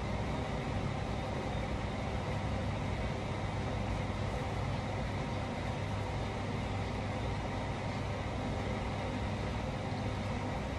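Steady mechanical hum with a hiss over it, unchanging throughout.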